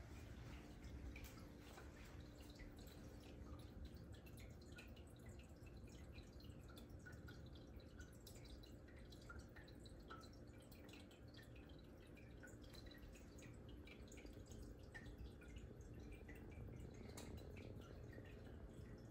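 Near silence: quiet indoor room tone with a low steady hum and many faint, scattered little ticks.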